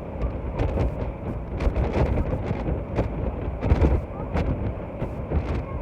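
Wind buffeting the microphone on a moving boat, irregular gusty thumps over the steady low rumble of the boat running through the water.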